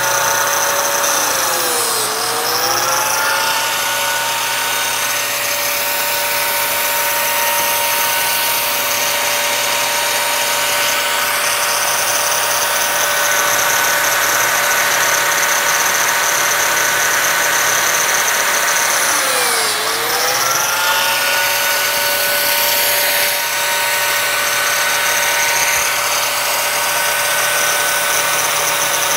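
Lamello biscuit joiner running, a steady motor whine over a hiss, cutting size 0 biscuit slots in the mitered ends of pine boards. Its pitch sags twice, about two seconds in and again near twenty seconds, as the blade plunges into the wood, and recovers each time.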